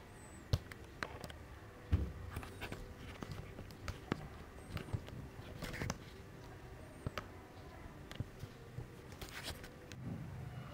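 Scattered light clicks, taps and small scrapes from handling a plastic moon lamp ball on a stone floor and its wooden stand. The sharpest taps come about half a second and two seconds in.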